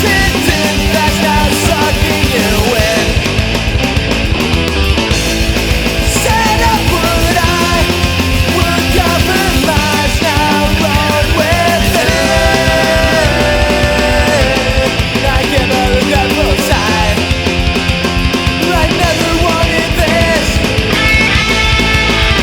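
Background rock music with heavy distorted guitars and a driving beat.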